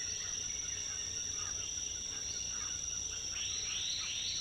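Rainforest insect chorus: a steady high-pitched trill, with scattered faint short chirps and three quick arching calls in a row near the end.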